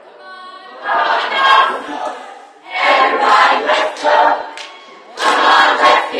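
A group of voices singing or chanting together in three short, loud phrases, with quiet gaps between them.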